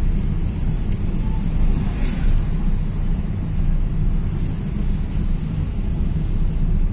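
Steady low rumble of a car driving, heard from inside the cabin: engine and tyre-on-road noise.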